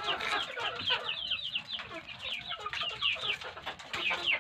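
Chickens calling: a steady stream of short, high peeps that fall in pitch, several a second, with some lower clucking.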